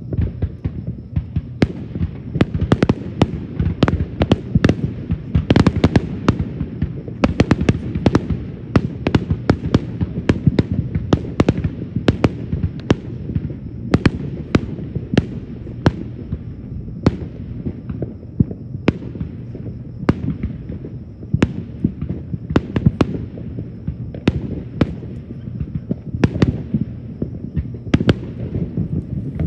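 Aerial fireworks going off in a rapid, irregular string of sharp bangs, dozens of them, over a steady low rumble.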